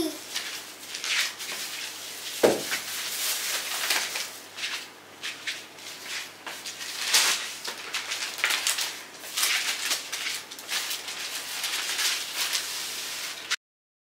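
Plastic carrier bags and fabric totes rustling and crinkling as they are handled and set down on a wooden wardrobe shelf, with one knock about two and a half seconds in. The sound cuts off suddenly near the end.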